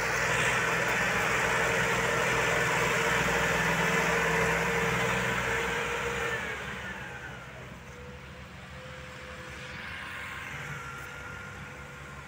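Massey Ferguson 240's three-cylinder diesel engine labouring under a heavy trailer load. It runs loud and steady, then drops in level after about six and a half seconds and carries on quieter.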